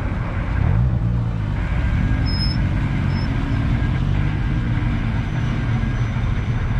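A vehicle engine running close by with a steady low rumble, its pitch wavering slightly.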